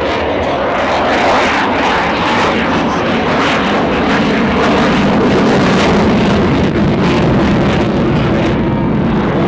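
Jet noise from an RAF Eurofighter Typhoon's twin Eurojet EJ200 turbofans as it flies its slow-speed pass. The noise is loud and steady and swells a little about halfway through.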